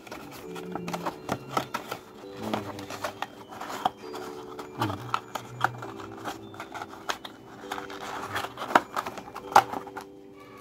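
Thin cardboard visiting-card boxes folded and closed by hand: repeated crisp snaps, creases and taps of card, the sharpest two near the end. Soft background music with steady held notes plays underneath.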